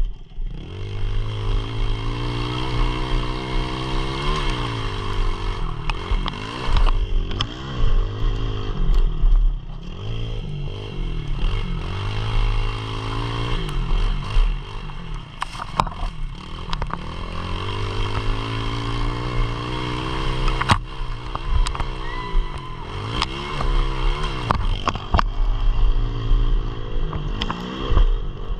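Pit bike engine heard from on board the bike, revving up hard and easing off again and again as it is ridden around a dirt track. Scattered sharp knocks from the bike going over the rough ground cut through the engine.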